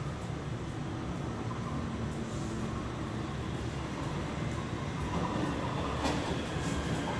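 Taipei Metro C301 electric multiple-unit train approaching the station along the track: a low rumble that grows louder about five seconds in.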